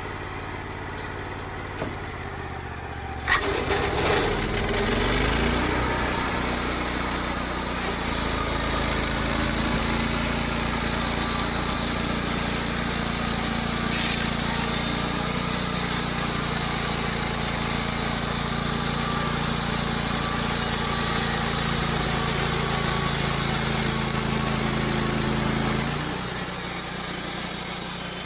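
Wood-Mizer LT35 sawmill's engine running: it idles for about three seconds, then revs up with a rising pitch and runs steady at high speed, its tone changing near the end.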